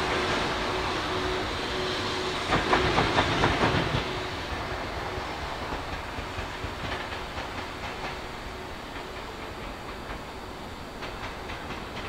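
EF81 electric locomotive running light and moving away: its wheels clatter over the rail joints in a quick cluster of clacks about two to four seconds in, and the running noise then fades as it goes into the distance, with a few faint clacks near the end.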